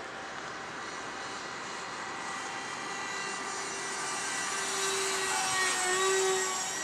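Whine of a 70mm electric ducted fan on an RC F-16 jet flying past, growing steadily louder as it comes close and peaking about six seconds in, its pitch dipping slightly as it passes.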